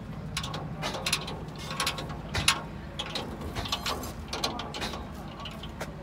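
Irregular metal clicks and clanks of steel formwork panels and reinforcement bars being worked by hand, with one louder knock about two and a half seconds in, over a steady low hum.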